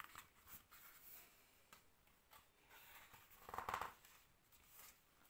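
Faint handling of a hardcover picture book: soft rustles and small clicks of paper, with one louder brief page-turn swish about three and a half seconds in.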